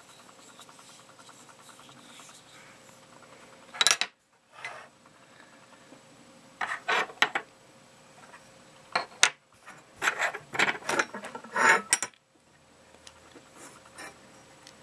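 Bone handle scales and a metal knife blank handled on a tabletop: a run of short knocks and scraping rubs, starting after a few quiet seconds and clustered in the second half.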